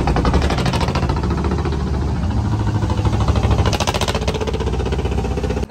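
Engine of a wooden river boat running loud and steady, with a rapid, even beat.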